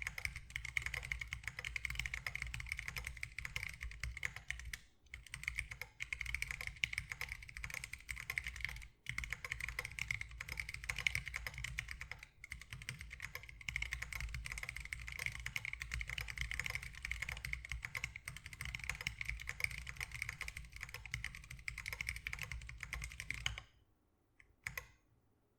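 Typing on a Lily58 Pro split custom mechanical keyboard with Zealios V2 62g tactile switches, lubed with Tribosys 3203, under MDA Big Bone keycaps. A steady stream of keystroke clacks, broken by a few brief pauses, stops about two seconds before the end, then a few single keystrokes follow.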